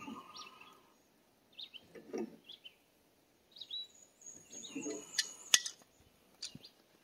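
Small songbirds chirping in short bursts now and then, over soft handling noise of hands on pipe fittings. About five seconds in comes a quick cluster of sharp clicks as a pipe wrench is picked up and handled.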